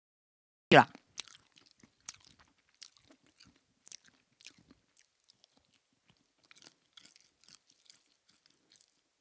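A person chewing and crunching food close to the microphone: a string of small, irregular crunches and mouth clicks.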